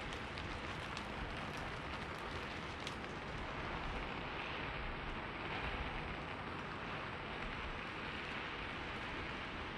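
Steady rain falling, with a few sharp drops tapping in the first three seconds.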